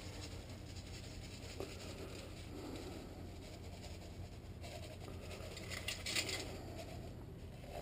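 Faint scratching and rubbing, with a brief louder rustle about six seconds in, over a steady low hum.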